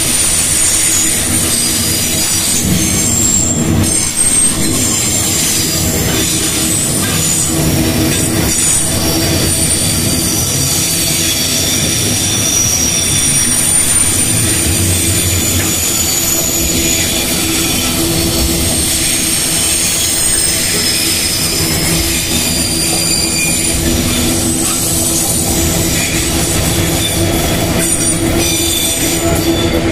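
Loaded freight train's flatcars and container wagons rolling past on a curve, steel wheels squealing in shifting high-pitched whines over a steady rumble and clatter of wheels on rail.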